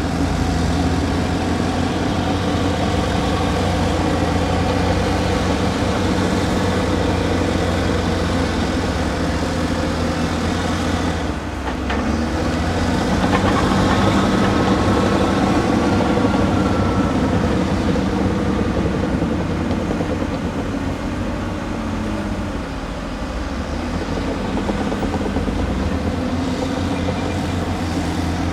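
Heavy excavator diesel engine running under working load, digging and moving dirt. The engine note is steady, dips briefly near the middle, then grows a little louder with a faint whine.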